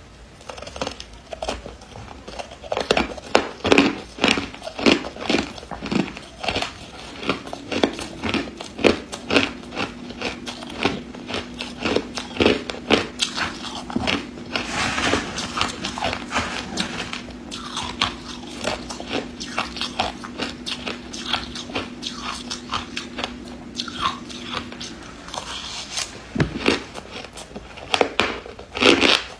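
A person biting and chewing ice, with a rapid, irregular run of sharp crunches. A faint steady hum runs under the crunching through most of the middle and stops near the end.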